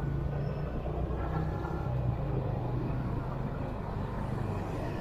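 A vehicle engine running steadily at low revs, with road and traffic noise, while the vehicle turns around.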